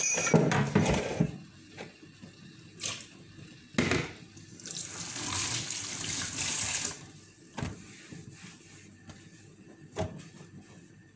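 Water running from a kitchen tap into the sink for about two seconds, partway through. Before it comes a clatter of pots and utensils in the first second, and single knocks of kitchenware come now and then.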